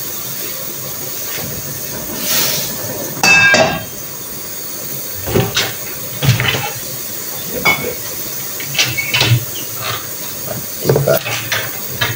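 Steady sizzling hiss of garlic and onion frying in a pan, with kitchen handling noises over it: a ringing clink about three seconds in, then scattered knocks and taps as a wall cupboard is opened and things are taken out.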